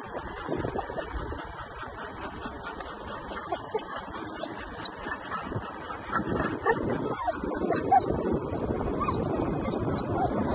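A dog trailer towed by an electric bike rolling along a paved road, with wind on the microphone; the rolling and wind noise grows louder about six seconds in. A dog pants over it.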